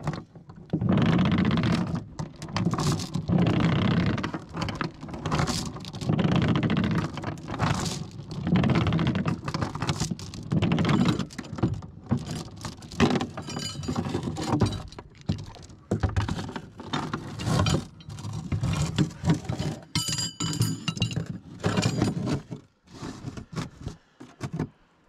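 Anchor chain being hauled in by hand over the bow roller of a small boat, clanking and rattling in a pull about every second, with metallic clinks and scrapes as the links run over the roller and drop aboard.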